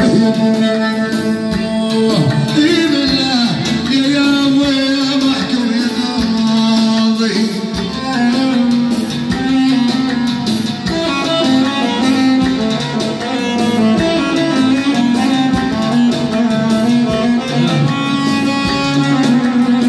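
Live Arabic music on an electronic keyboard with a plucked-string sound, playing a slow melody of long held, ornamented notes.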